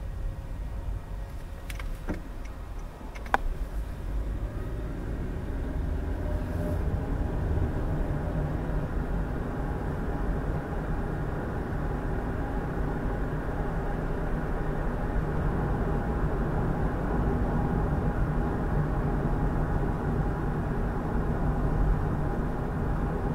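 Car driving: steady engine and road noise that grows louder over the first several seconds as the car gathers speed, then holds. A few sharp clicks come near the start.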